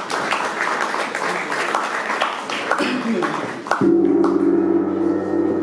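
Audience applauding, then a large hanging gong is struck once, nearly four seconds in, and rings on with a steady, many-toned hum.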